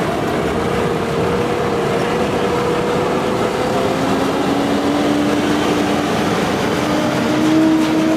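Emergency-vehicle sirens sounding loudly. One wail climbs slowly in pitch, and a second, lower wail joins it about four seconds in, over the noise of vehicles.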